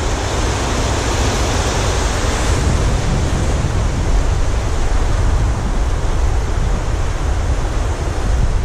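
Ocean surf breaking and washing across a shallow reef shelf, a steady loud rushing wash.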